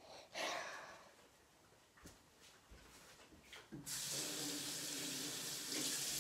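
Kitchen sink faucet turned on about four seconds in, water running steadily into the sink until it is shut off at the end. A short burst of noise comes about half a second in.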